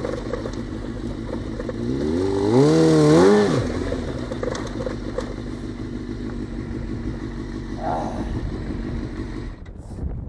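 Suzuki GSX-R600 inline-four motorcycle engine revving up in wavering blips about three seconds in, then running steadily at lower revs. The engine sound drops away suddenly near the end.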